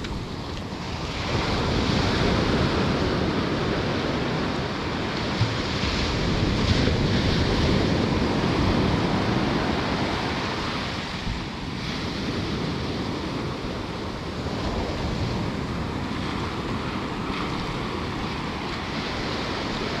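Small ocean waves breaking and washing up the sand at the shoreline: a steady rush of surf that swells louder a couple of seconds in and eases off about halfway through. Wind buffets the microphone throughout.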